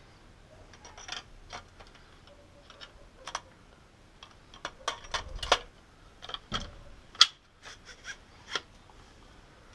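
Irregular metallic clicks and clacks of an MP-153 semi-automatic shotgun being reassembled, as the barrel is worked onto the receiver and magazine tube. The clicks are scattered at first and come thicker and louder in the second half.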